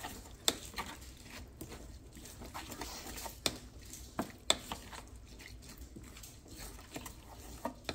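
Wooden spoon stirring chopped onion, peppers and herbs in lime juice and stock in an enamel bowl, with half a dozen sharp clicks as the spoon knocks against the bowl.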